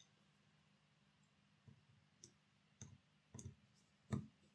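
Small screwdriver turning a screw that holds the drawbar on a model locomotive chassis: about five faint, separate clicks and ticks, the loudest near the end.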